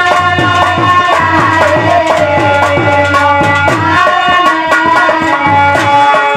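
Indian folk devotional (bhajan) music: a dholak drum playing a quick rhythm, its bass strokes dropping in pitch, under a melody of held notes.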